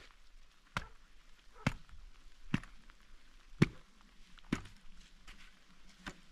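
Steel shovel blade struck down onto straw-strewn mud, six sharp chops at about one a second.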